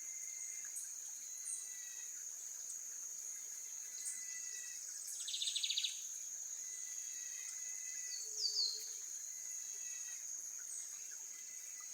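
Steady high-pitched insect drone from the woods, with birds calling over it: a rapid trill about five seconds in, a pair of quick down-slurred notes near the middle, and scattered short chirps.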